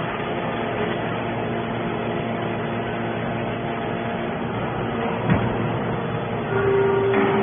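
Hydraulic scrap metal baler running: a steady machine hum with a single metallic knock about five seconds in, then a louder steady tone joining near the end.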